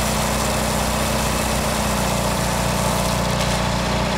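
Gas-engine pressure washer running steadily with a constant hum, its water spray hissing across a freshly milled rosewood board to wash off the sawdust.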